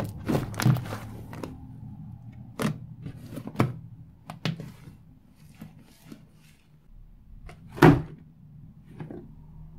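Large mass of fluffy shaving-foam slime being squeezed and pressed by hand, giving a string of sticky pops and crackles as trapped air breaks out, with one louder thud near the end as the slime is pressed down on the table.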